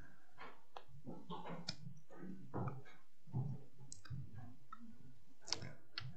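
Faint scattered clicks and soft knocks, with shuffling, as people move about; the sharpest click comes near the end.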